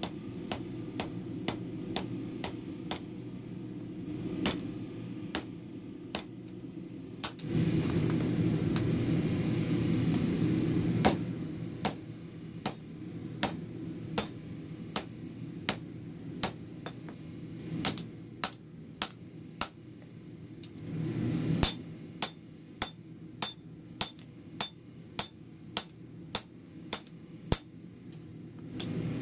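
Hammer blows on hot steel at the anvil while the gear is forged into a meat cleaver blade: sharp ringing strikes, about two to three a second, in runs with short pauses. A steady low roar runs underneath and grows louder for a few seconds about a quarter of the way in, and again about three quarters in.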